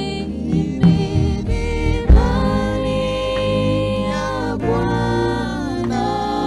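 Gospel praise music with voices holding long sustained notes over a pitched backing. Two low hits come about one and two seconds in.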